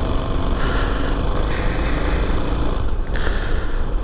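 Small Chinese motorcycle's engine running at low speed while being ridden, still cold, under a steady rush of wind and road noise that shifts about three seconds in.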